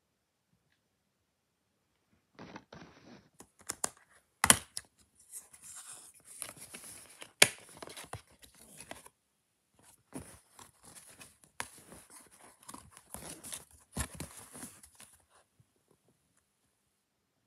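Hands handling and opening a plastic DVD case: irregular rustling, scraping and crinkling of plastic with several sharp clicks, the loudest about a second and a half after the noise begins and again near the middle.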